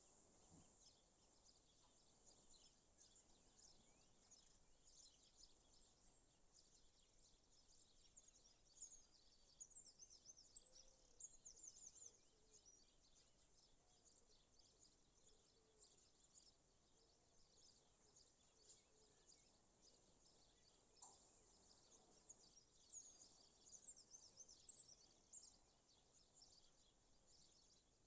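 Faint chorus of small birds chirping and twittering, many short high calls overlapping, with louder clusters of chirps about a third of the way in and again near the end.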